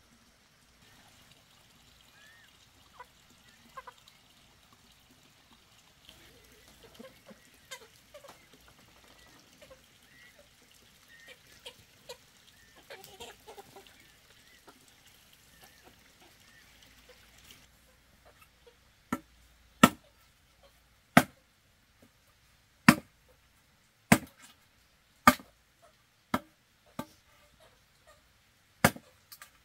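Faint poultry calls over quiet background at first, then, about two-thirds of the way in, a run of sharp chopping strokes, roughly one a second, a blade striking down onto wood.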